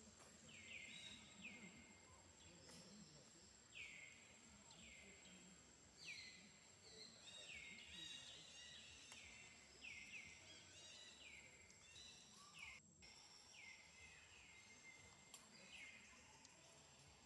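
Faint bird calls repeated over and over: short notes that fall in pitch, about one a second, some overlapping, with a thin steady high-pitched whine underneath.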